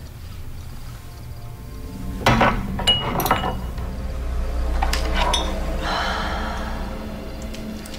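Glass clinking against glass on a bedside table as a drinking glass and bottles are handled: a cluster of sharp clinks between about two and three and a half seconds in, and a few more about five seconds in, over soft background music.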